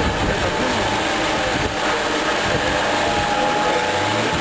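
A vehicle engine running steadily under a constant rushing noise.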